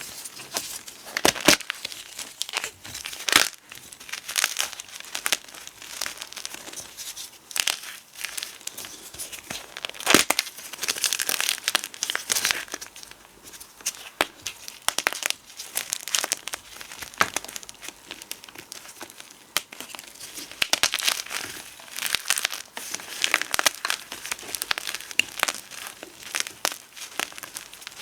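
Gym chalk and potato flour being crushed and crumbled: a dense, irregular crackling and crunching with sharp snaps scattered through it.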